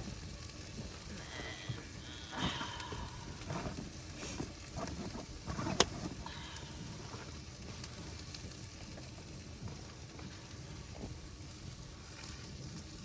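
Chicken sizzling as it fries in a pan, a steady crackling hiss, with a few light clicks and knocks of the pan or utensils in the first half and one sharp click a little under six seconds in.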